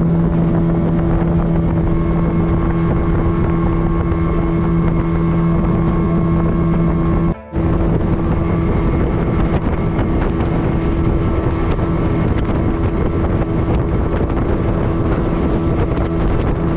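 Small boat's engine running steadily under way, a constant hum with wind buffeting the microphone; it breaks off for a moment about seven seconds in.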